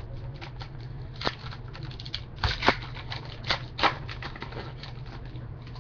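Football trading cards being handled and flicked through from freshly opened packs: an irregular run of light clicks and rustles, with a few sharper snaps in the middle, over a steady low hum.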